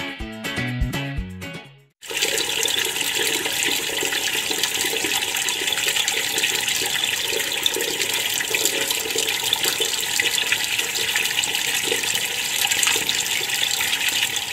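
Strummed guitar music for about two seconds, then after a short break, a tap running steadily while hands are washed with soap.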